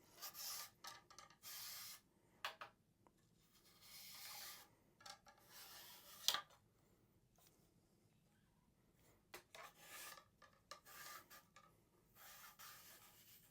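Faint scrubbing of a 45-caliber bore brush pushed back and forth through the barrel of an 1884 Springfield Trapdoor rifle, in irregular bursts, with one sharp click about six seconds in. The brushing breaks up old crud in the dirty, worn bore.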